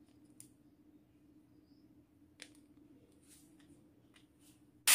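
Faint clicks and light taps of small plastic toy pieces being handled and set down on a table, over a low steady hum. A loud crash-like noise starts right at the very end.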